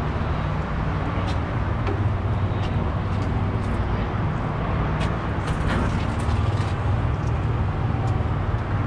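Steady low mechanical drone of rooftop HVAC equipment running, with a few light metallic clicks and taps as panel parts and screws are handled.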